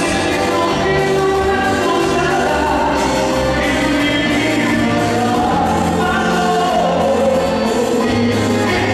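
Live tropical-music band playing loudly through a sound system, with several voices singing together.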